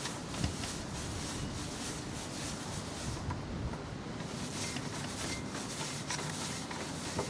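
EZ Detail brush scrubbing all-purpose cleaner into wet engine-bay parts: the soft bristles swish and scrape in quick repeated strokes.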